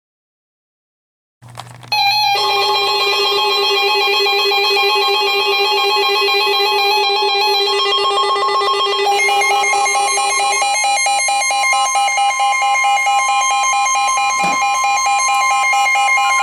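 Emergency Alert System attention tone: a loud electronic alarm of several layered tones warbling rapidly back and forth, starting after about two seconds of silence. About two-thirds of the way in, the lowest tone drops out and a steady single tone sounds over the warble.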